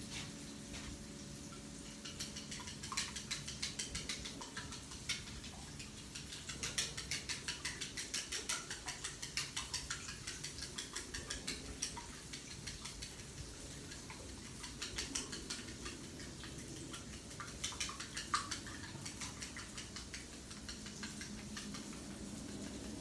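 Raw eggs being beaten with wooden chopsticks in a bowl: quick runs of light clicks as the chopsticks strike the bowl, several a second, with short pauses between the runs.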